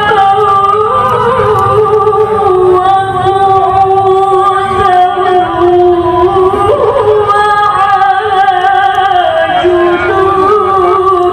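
A woman's voice reciting the Quran in melodic tilawah, long held notes with wavering ornamental turns and a quick run of notes about two-thirds of the way in.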